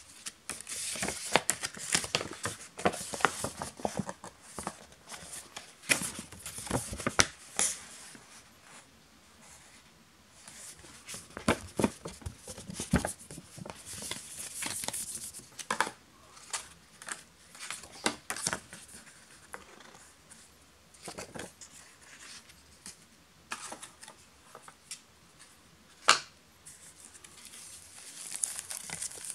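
Cardboard packaging of a smartphone box being handled: card trays and inserts sliding, tapping and clicking against each other, in scattered bursts with a few quiet pauses and one sharp click near the end.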